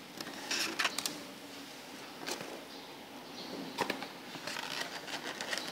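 Quiet food-handling noises: a few soft clicks and light rustles as fried noodles are tipped from a container into a ceramic bowl, a small cluster about half a second in and single clicks later.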